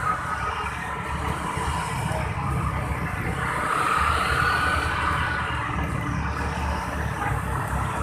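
Motorbikes riding in a group at street speed: steady wind rumble on the microphone over engine and road noise, with an engine note that swells and fades about four seconds in.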